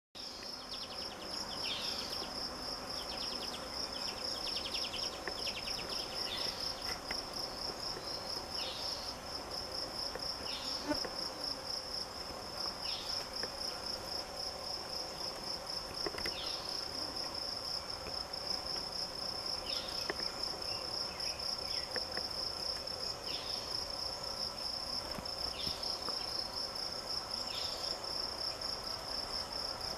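Insects trilling outdoors: a steady, high-pitched, rapidly pulsing trill that never stops. Short falling chirps come every few seconds over it.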